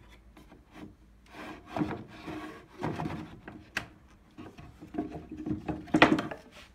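A wooden jig slid over a plywood saw table and along its fence: wood rubbing on wood in several scraping strokes, with a couple of sharp knocks, the loudest near the end.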